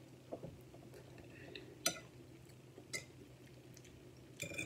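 A metal fork clinking lightly against a plate four times as beans and rice are scooped up, the clink about two seconds in the loudest.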